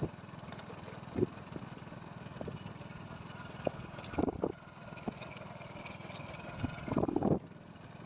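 Small motorcycle engine running steadily at low revs while riding, a low even hum, with a few short thumps about a second in, around four seconds in and near the end.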